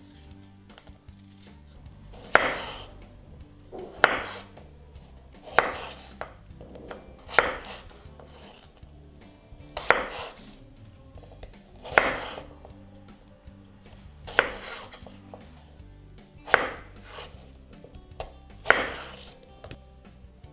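Kitchen knife cutting radishes in half on a bamboo cutting board: about nine separate cuts, roughly one every two seconds.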